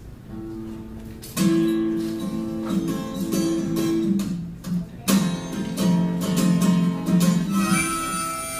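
Acoustic guitar playing a song's opening chords, starting softly and coming in strongly with strummed chords about a second and a half in.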